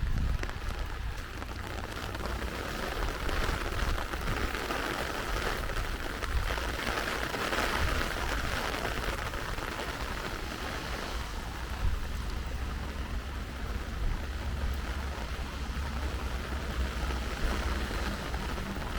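Rain falling steadily: an even hiss that swells through the middle and eases again, over a low rumble.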